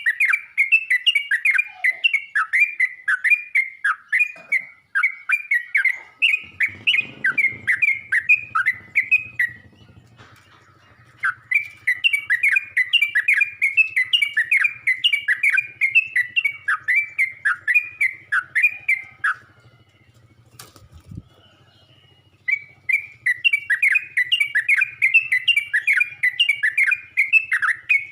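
Yellow-vented bulbul (trucuk) singing: long runs of quick, chirpy repeated notes, about three a second, in three bouts separated by two short pauses. A faint low hum sits underneath from about a quarter of the way in, with a single click during the second pause.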